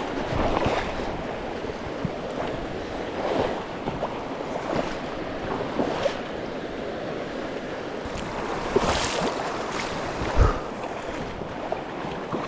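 River water rushing, with several louder splashes and a dull thump near the end.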